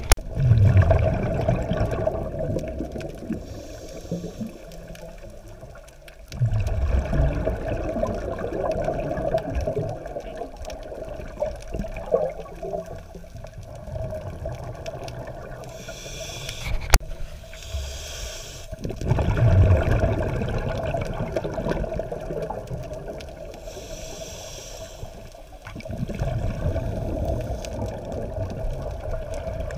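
Scuba diver's regulator breathing, heard underwater: exhaled bubbles gurgle and rush out in a swell a few times, with short hisses of inhalation between, over a steady underwater wash.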